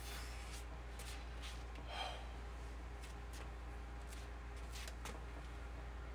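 Faint room tone with a steady low hum, scattered soft clicks and rustles from a person moving about, and a brief louder sound about two seconds in.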